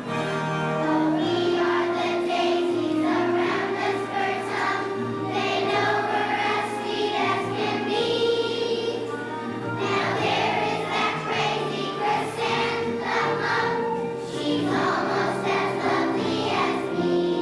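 Children's choir singing a song in unison over instrumental accompaniment.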